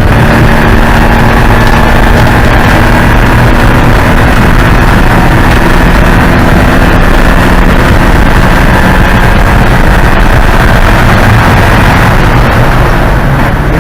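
Porsche 944 Spec race car's four-cylinder engine running hard at fairly steady high revs, loud, over a dense rushing noise; the sound eases off a little near the end.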